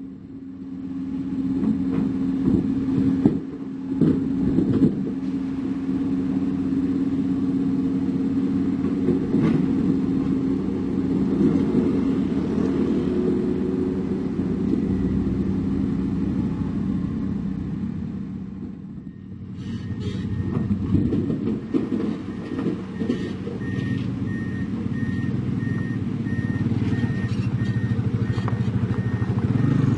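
Heavy diesel construction machinery running with a steady engine drone and a few sharp knocks early on. About two-thirds of the way in, a vehicle's reversing alarm starts beeping at a steady pace over the engine noise, the sign of a truck or machine backing up.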